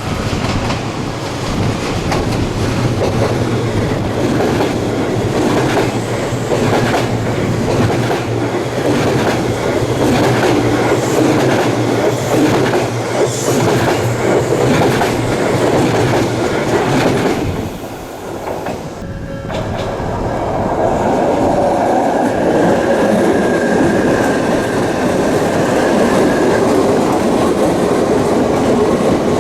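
Odakyu electric train passing close by at a level crossing, its wheels clattering steadily over the rail joints. The noise dips briefly about two-thirds of the way through, then the clatter resumes.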